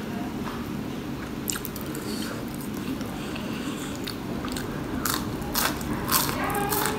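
Close-miked chewing, then biting into a crispy fried onion pakora, with a run of loud crunches in the last two seconds.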